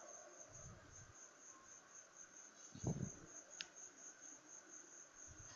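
Near silence, with a faint, steady, high pulsing trill like an insect's. There are two soft low thumps, about half a second and three seconds in, as a ladle works the adai batter on the cast-iron griddle.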